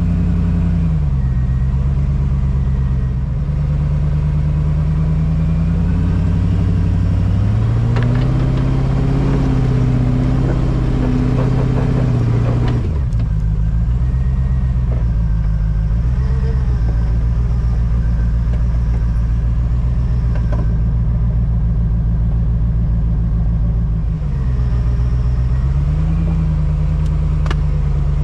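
Land Rover Discovery's V8 engine pulling the truck at low speed over rough trail ground. The revs rise about a quarter of the way in, hold for several seconds and drop back, then rise and fall briefly again near the end.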